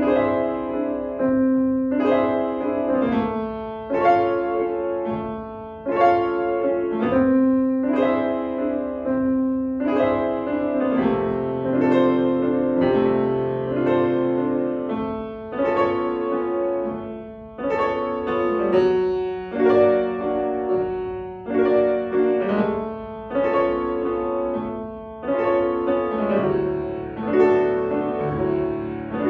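Solo grand piano playing a classical piece, with loud, accented chords struck every one to two seconds over running notes.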